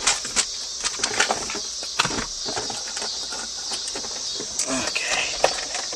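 Insects chirring steadily, with scattered clicks and knocks over it and a sharper knock at the very end.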